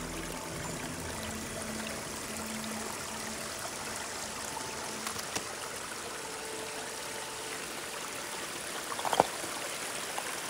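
Water flowing steadily in a small stream, with one short sharp knock about nine seconds in.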